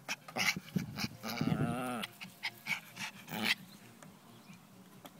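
A Pomeranian making a string of short vocal noises, with one longer wavering, pitched note about a second in. It falls quiet after about three and a half seconds.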